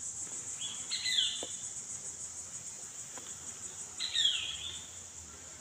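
Steady high-pitched drone of insects, with a bird call falling in pitch about a second in and again about four seconds in.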